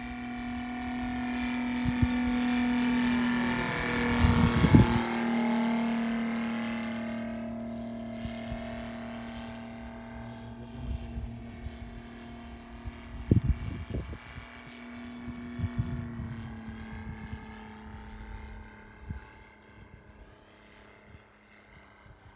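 Radio-controlled Corsair model airplane's motor and propeller, a steady droning hum that swells as the plane passes close about four seconds in, drops in pitch as it goes by, then fades as it flies off. A few low thumps of wind on the microphone.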